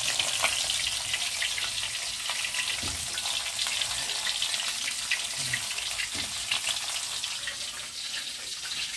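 Tilapia frying in hot oil in a wok, the oil sizzling steadily with a dense crackle of small pops.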